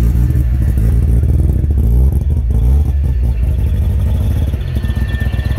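Mazda rotary engines of a line of waiting cars idling together, a loud, deep, uneven pulsing.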